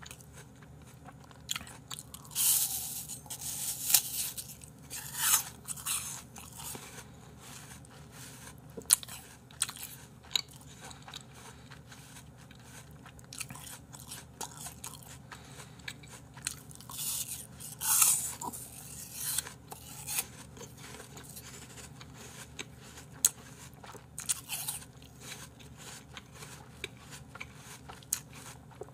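Raw apple slices being bitten and chewed, crisp crunches that come in clusters: a few seconds in, again past the middle, and briefly near the end, with quieter chewing between.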